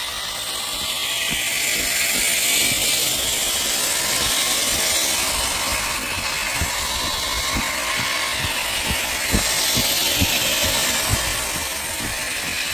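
1/10-scale Traxxas TRX-4 Defender RC truck driving over rough ground: its electric motor and drivetrain whir steadily while many short knocks and clatters come from the chassis and tyres.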